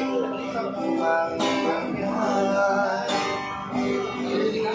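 Acoustic guitar strummed as song accompaniment, a fresh chord struck about every one and a half seconds and left ringing between strokes.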